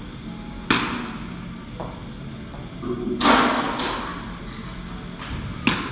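Three sharp thuds, the loudest about three seconds in with a longer tail, from baseballs thrown in a throwing drill striking something.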